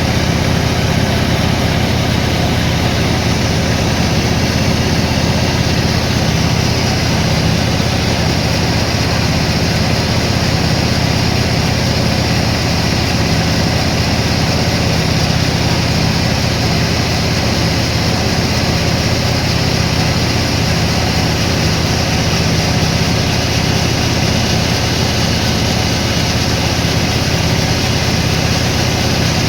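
Sawmill machinery running steadily: a constant engine drone that holds the same pitch and level throughout, with no cutting strikes or changes in load.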